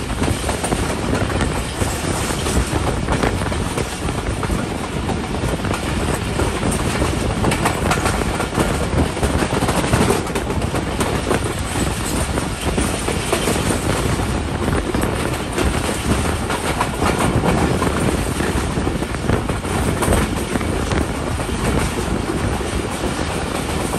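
Passenger train running along the track at speed, wheels rolling on the rails in a steady, unbroken rumble, heard from beside the coach.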